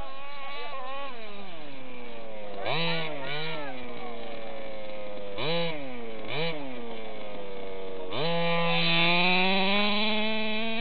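Two-stroke petrol engine of an HPI Baja 5B SS radio-control car revving in short blips, two pairs of them about a quarter and halfway through, then pulling up to high revs and holding there for the last few seconds.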